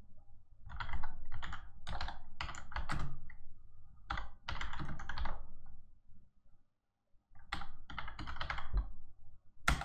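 Computer keyboard typing, quick runs of keystrokes with a short pause a little past the middle. It ends with one sharp, louder keystroke, the Enter key that runs the typed command.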